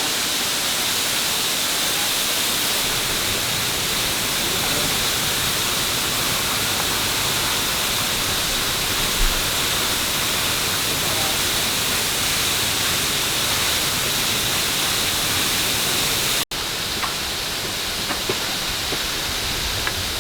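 Large waterfall, Yinhe Waterfall, pouring down in a steady, dense rush of falling water, running high after recent typhoon rain. About three-quarters of the way through, the sound cuts out for an instant and comes back slightly quieter.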